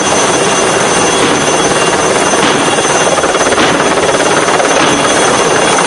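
Lama helicopter hovering low overhead with a loud, steady rotor and turbine noise and a fast, even blade chop, holding position while it carries a slung concrete bucket.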